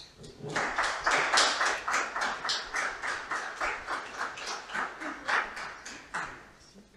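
Audience applauding, a run of many quick hand claps that starts about half a second in and dies away near the end.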